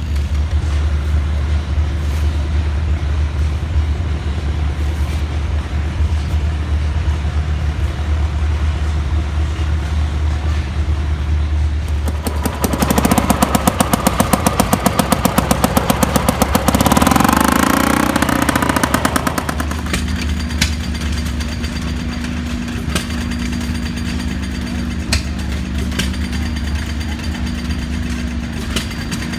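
A running engine with a steady low hum. About twelve seconds in, a louder engine beats fast and evenly for about five seconds, then a brief wavering pitched sound follows before the steady hum returns.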